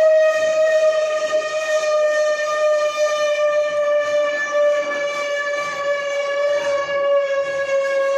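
Automatic bar threading machine running with a steady high whine, its pitch sinking slowly, over a light mechanical hiss.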